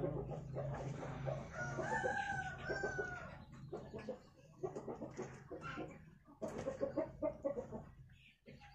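A rooster crows once, about two seconds in, over a low steady hum that stops around the middle. After that come faint, scattered rustles and clicks.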